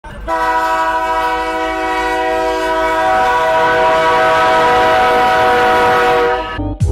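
A loud sustained chord of several steady tones, held unchanged for about six seconds before cutting off suddenly.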